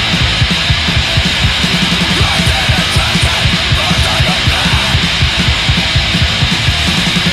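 Loud D-beat kängpunk (Swedish-style hardcore punk): distorted guitars over a fast, driving drum beat.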